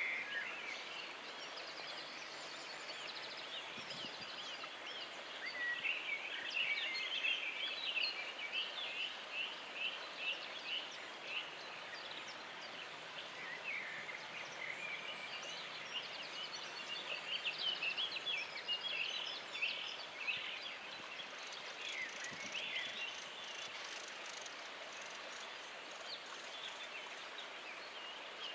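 Several songbirds singing at once in a floodplain forest, many quick chirping and warbling phrases overlapping, over a steady rush of background noise, likely the nearby river.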